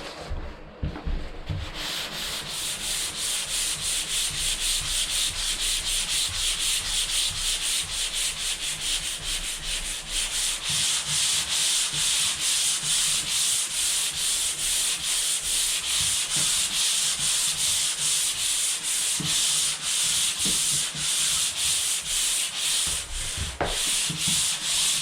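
Sandpaper rubbing over dried drywall joint compound in a steady rhythm of quick back-and-forth strokes, a rasping hiss that starts about two seconds in and stops abruptly at the end.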